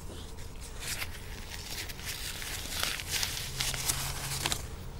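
Quiet room tone with a few faint, brief rustling and handling noises.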